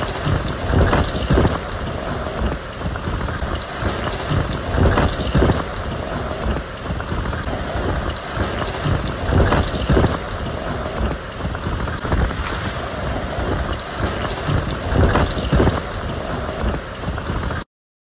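Gale-force wind and heavy rain, the gusts buffeting the microphone in repeated low rumbles every few seconds. The sound cuts off suddenly near the end.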